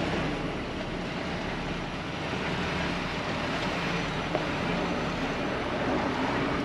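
Semi-truck engine running and steady cab noise from inside a Freightliner Cascadia's cab as the truck moves slowly and turns.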